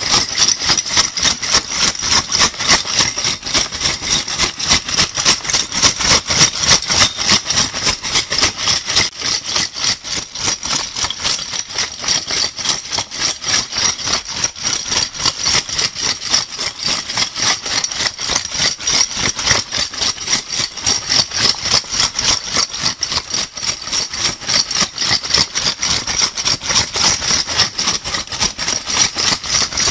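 Metal crown bottle caps shaken together in quick, even shakes of about four a second, a continuous dense jingling rattle.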